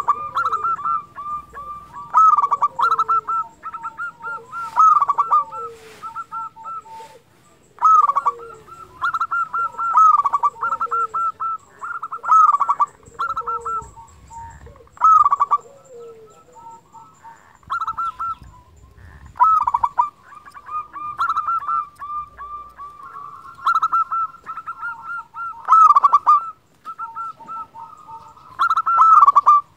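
Zebra dove (perkutut) singing: phrase after phrase of quick, rolling coo notes, a new phrase every one to three seconds. Fainter high chirps come in between.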